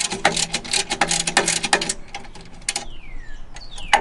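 Hand ratchet clicking rapidly as a loosened exhaust bolt is run out, then a few scattered clicks and short falling squeaks.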